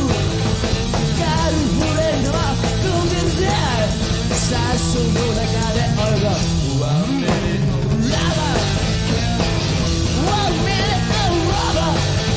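Live rock band playing an instrumental passage: electric guitar with bending, wavering notes over bass and drums.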